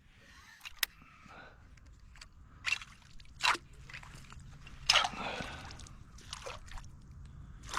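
Light water sloshing and dripping, with a few short sharp splashes or knocks scattered through.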